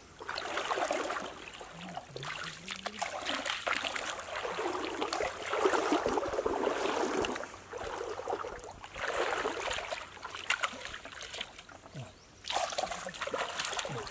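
Water splashing and sloshing in uneven surges of a few seconds each, with short lulls between them.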